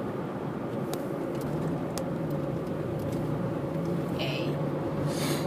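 Steady engine and road noise of a moving car heard from inside the cabin, with a couple of faint clicks.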